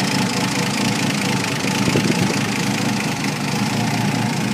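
Bentley 4¼ Litre straight-six engine ticking over at a steady idle.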